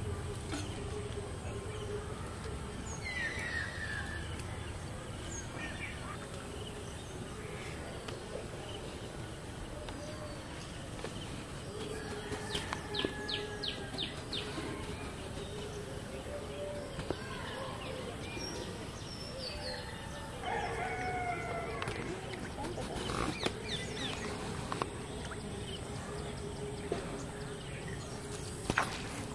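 Village outdoor ambience: a rooster crowing and small birds calling at intervals over a steady faint hum, with a sharp click near the end.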